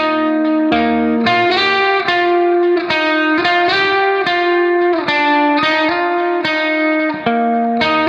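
Background music: a plucked guitar playing a steady melody of separate ringing notes, with an occasional low bass note underneath.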